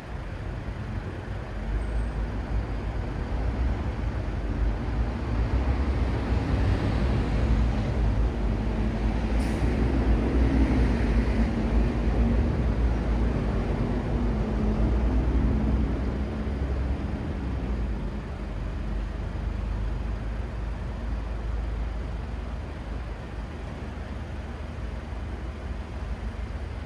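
Road traffic at an intersection: a steady low rumble of engines and tyres that swells as a heavy vehicle's engine passes close, loudest from about six to sixteen seconds in, with a brief hiss near ten seconds, then eases off.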